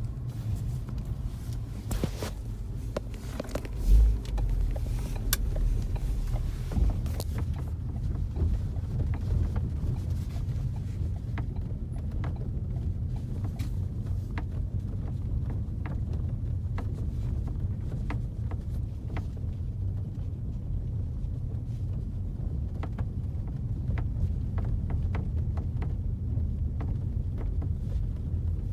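Cabin noise of a 2016 Ford Focus RS on the move: a steady low road and engine rumble with repeated short creaks and ticks from the roof area, which the owner suspects is the headlining creaking. A heavier low thump comes about four seconds in.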